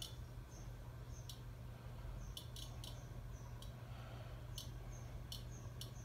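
Hampton Bay Minuet II ceiling fan running at speed: a steady low motor hum, with irregular sharp clicks and short faint high chirps over it.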